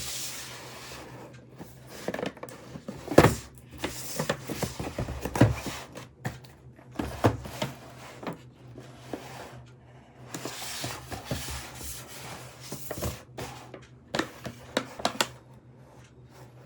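Packaging being handled and opened by hand: scattered knocks and clicks with bouts of rustling, the loudest knock about three seconds in, over a faint steady hum.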